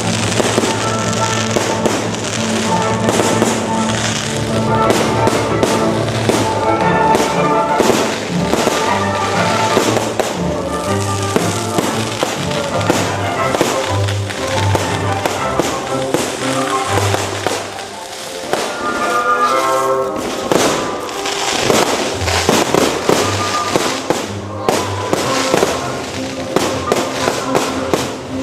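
Fireworks going off in quick succession, dense sharp bangs and crackles throughout, over music with held notes.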